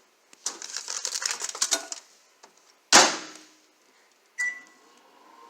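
Crinkling of a paper microwave popcorn bag being handled. About three seconds in comes a loud thump, like the microwave door shutting. A keypad beep follows, and then the microwave oven starts running with a low steady hum.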